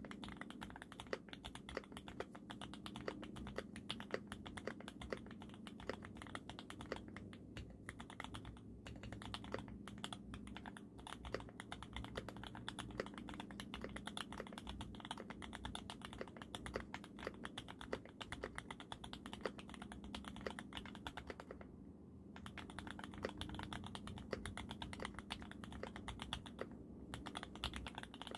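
Continuous typing on a Sangeo60 60% custom mechanical keyboard with lubed switches and lubed Cherry stabilizers, fitted with GMK Crimson Cadet keycaps: a fast, even run of keystrokes broken by a few brief pauses.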